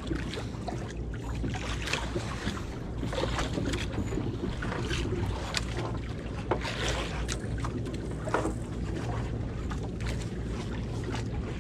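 Wind buffeting the microphone aboard a small fishing boat on the sea, with water moving around the hull, a steady low rumble underneath and scattered short knocks.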